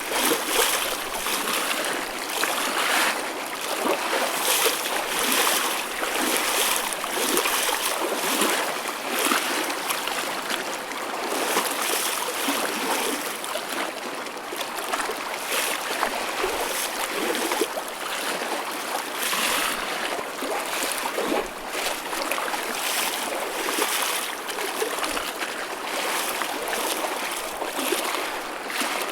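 Choppy ocean waves: a continuous hiss of sloshing water broken by small splashes about once a second, with little deep rumble.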